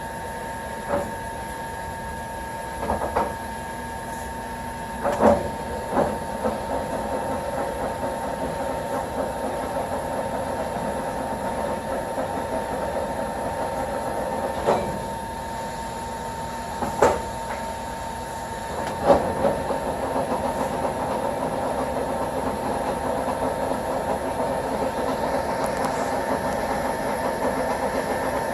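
1954 American Pacemaker engine lathe running under power, its geared headstock making a steady mechanical hum. Several sharp clunks come in the first two-thirds, and the running sound grows busier after one of them.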